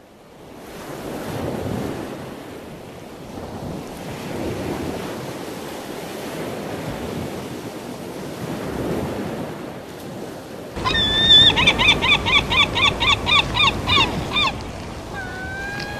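Ocean waves washing and surging, swelling and falling every few seconds. About two-thirds of the way through, a bird calls a rapid run of about a dozen sharp, down-sliding notes, followed by one drawn-out note near the end.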